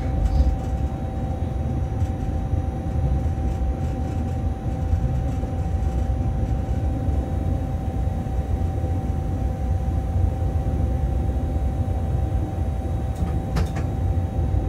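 Cab interior of a Bombardier Traxx BR 186 electric locomotive running at speed: a steady low rumble with a constant hum held over it, and a brief click near the end.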